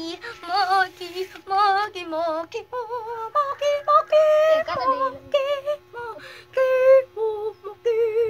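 A high voice singing wordlessly in short phrases with a strongly wavering pitch, over a faint steady hum.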